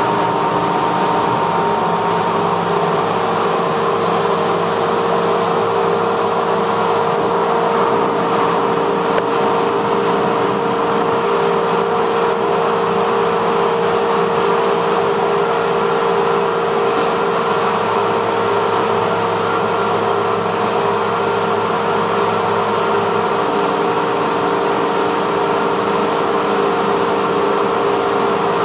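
CNC router spindle running with a steady whine while cutting foam, with a continuous hiss. Its tone shifts a few times: the hiss thins for about ten seconds from about a quarter of the way in, and the lower hum changes as the machine moves.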